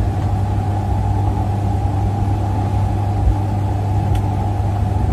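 Steady low rumbling hum of background noise, even throughout.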